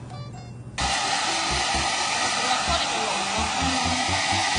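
Handheld hair dryer blowing steadily, drying a freshly bathed cat's shaved coat; it starts suddenly about a second in.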